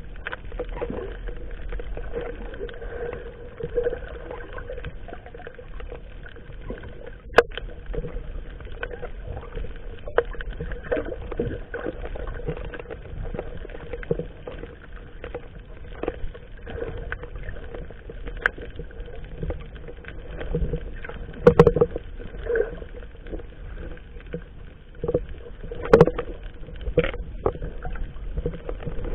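Small fishing boat at sea: a steady hum with scattered sharp knocks, the loudest a third of the way in, about three-quarters through and near the end.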